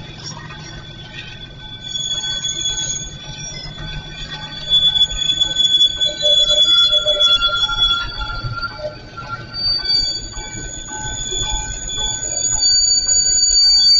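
Freight train of covered grain hopper cars rolling past, with a low rumble and steel wheels squealing in several high sustained tones that shift in pitch. The squeal grows louder about five seconds in and again near the end.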